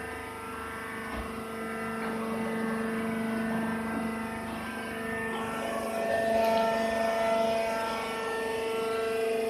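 Hydraulic sawdust and wood-shavings baler running: a steady machine hum made of a few steady tones over a noisy background, getting a little louder about six seconds in.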